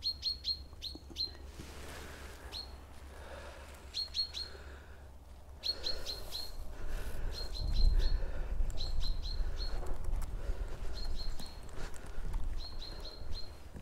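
Small birds chirping, short high notes repeated in quick runs of three or four, over and over. From about six seconds in come footsteps along a woodland path and a louder low rumble on the microphone.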